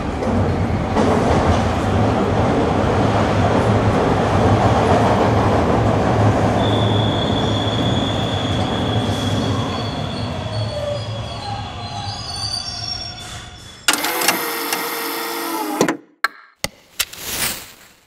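Subway train running: a steady rumble with a high, steady wheel squeal coming in about a third of the way through, fading away after about twelve seconds. A different sound then cuts in abruptly for about two seconds, followed by a few short clicks near the end.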